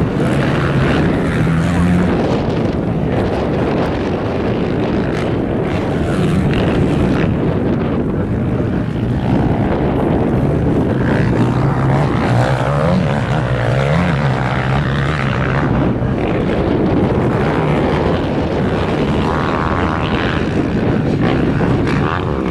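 Several motocross dirt bikes racing on a dirt track, their engines revving up and down through turns and jumps, the pitch rising and falling as the bikes accelerate and back off.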